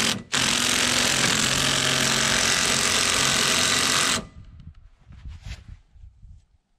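Cordless impact wrench hammering on a gear puller's forcing screw, trying to pull a gear off the conveyor's shaft. A brief blip right at the start, then about four seconds of continuous hammering that stops abruptly, followed by a few faint knocks.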